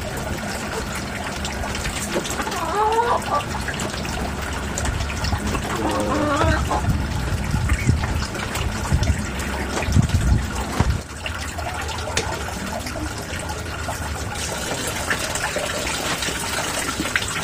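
Water splashing and trickling steadily into a fish pond from the outlet pipe of a running Armada pond pump. A few dull knocks sound around ten seconds in.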